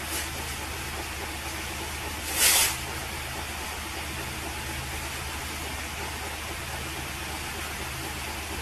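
Steady low hum with a constant hiss, and one short, loud hissing burst about two and a half seconds in.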